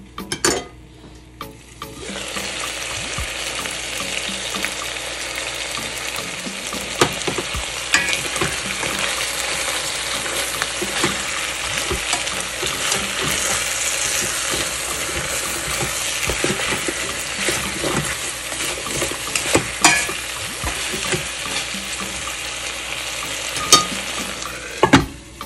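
Chicken drumsticks and chopped onion frying in a metal pot: a steady sizzle that sets in about two seconds in. A plastic spatula knocks and scrapes against the pot now and then as the pieces are turned.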